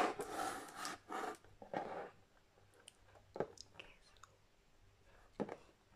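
Hands rubbing and sliding over a cardboard board-game box, a soft rustle for the first two seconds, then a few light taps of fingertips on the lid.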